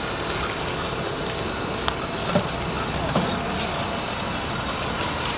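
Small narrow-gauge steam locomotive running along its track, a steady rush of steam noise with a few faint light clicks.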